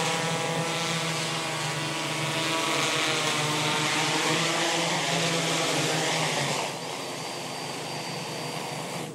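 Freefly ALTA Pro multirotor drone's propellers and motors droning steadily in flight while it flies on seven of its eight motors. The sound drops in level about seven seconds in.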